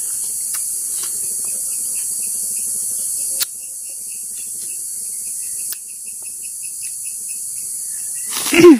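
Steady high-pitched drone of insects in the forest, with a short chirp repeating about four times a second through most of it. Near the end comes a loud call that falls sharply in pitch.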